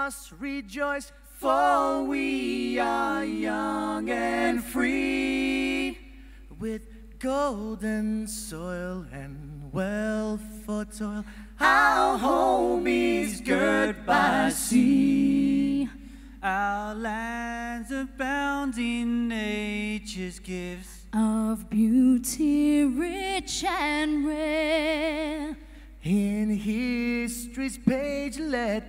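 Unaccompanied singing by a small group of voices: a slow song of long held notes with vibrato, phrase after phrase with short breaths between.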